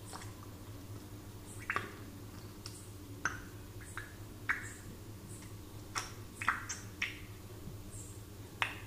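Bubbles in a glass of water, heard close up as a dozen or so short, irregularly spaced plinks and pops, over a faint steady low hum.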